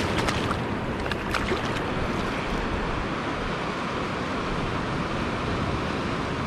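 Shallow shore water washing over sand: a steady rushing noise, with a few short splashes in the first two seconds.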